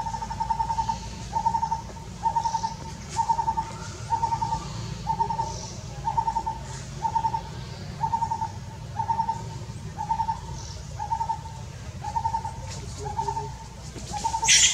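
A bird repeating a single hooting note about once a second, each note with a slight warble. A short, loud, high-pitched squeak cuts in near the end.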